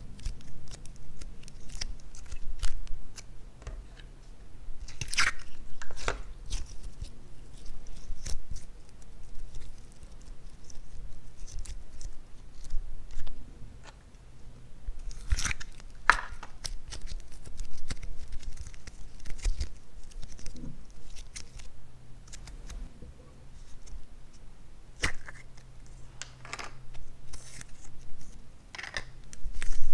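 Blue slime and clay worked by hand: stretched, folded and squeezed, giving sticky clicks, crackles and soft tearing sounds, with a few louder pops and tears here and there.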